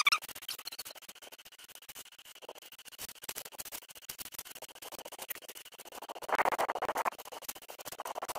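Black plastic bin bag crinkling and rustling in gloved hands, a dense run of small crackles that grows louder a little after the middle.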